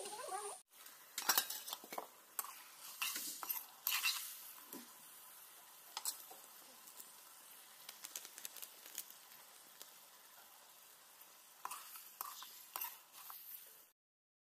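Chicken pieces sizzling in an iron kadhai while a metal ladle stirs them, scraping and clinking against the pan at irregular moments. The sound stops abruptly near the end.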